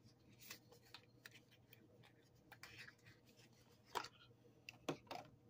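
Faint scattered clicks, taps and rustles of a cosmetic product's packaging being handled and opened by hand, with a few sharper clicks about four and five seconds in.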